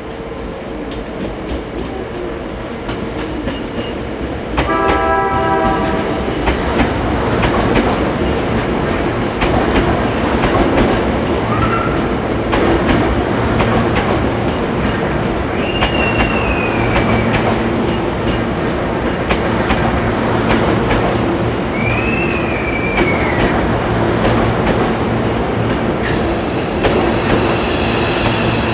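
Hankyu electric train running close by, with steady rail-joint clatter. A short horn blast sounds about five seconds in, and the wheels squeal in two rising-and-falling whines later on.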